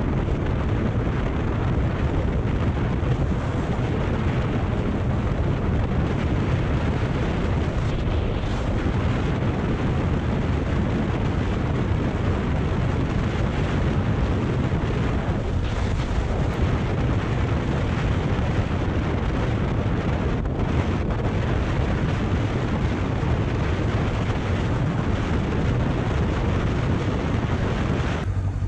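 Steady wind rush over the microphone on a moving Kawasaki Ninja 400 ABS motorcycle at road speed. The rush eases near the end.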